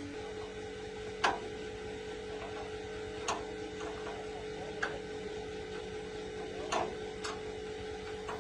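Electric motor running with a steady hum, with a few short sharp clicks scattered through.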